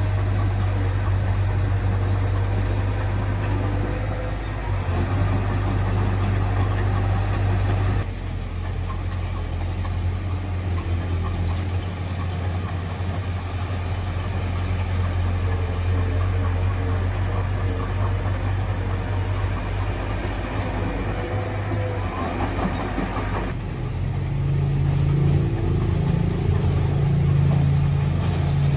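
Diesel engine of a Mitsubishi BD2J small crawler dozer running steadily while it works the sand, a low steady hum, changing abruptly twice. In the last few seconds a louder, higher engine note comes in.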